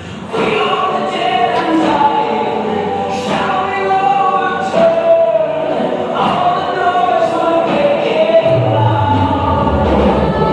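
Recorded song with sustained choir-like singing. The low bass drops away just after the start and returns about eight seconds in.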